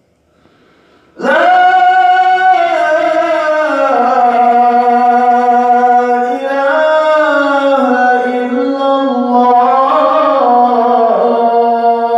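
A man's solo voice calling the adhan, the Islamic call to prayer, drawing out one long melismatic phrase whose pitch slides up and down. It begins about a second in, after a brief silence.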